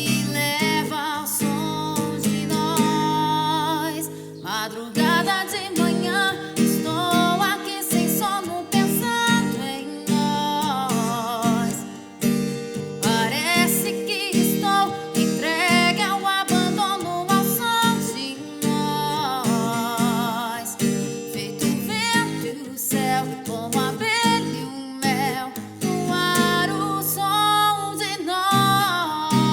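A woman singing a song with acoustic guitar accompaniment. The voice has vibrato, over steady strummed and plucked chords.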